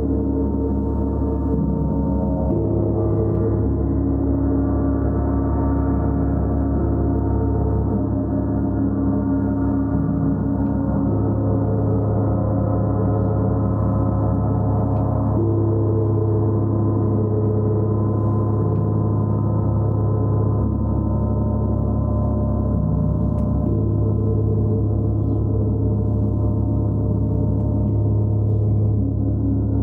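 A gong played continuously: a dense, steady wash of many overlapping low tones, their strongest pitches shifting every few seconds as the gong is kept sounding.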